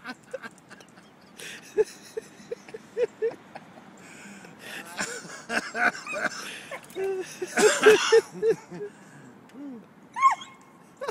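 Short hooting vocal sounds in quick runs of several, about four a second, with breathy noise between them.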